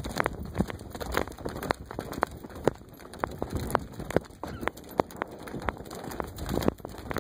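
Horse's hooves striking a dry dirt trail under a rider, an even beat of about two strikes a second over a steady hiss.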